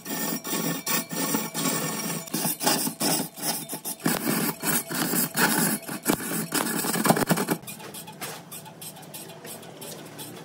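A tool cutting into wood with a quick, rhythmic rasping, several strokes a second, that drops to a fainter rasp about three-quarters of the way through.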